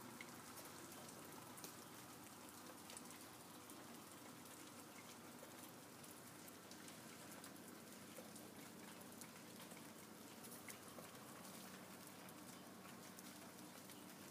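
Faint, irregular dripping and pattering, scattered small ticks over a steady low hiss: meltwater falling from snow-laden trees and roofs.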